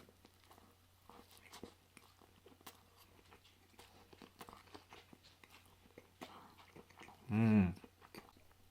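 Close-up wet chewing and mouth clicks from eating a soft pulled pork sandwich, with a short, loud hummed vocal sound about seven seconds in.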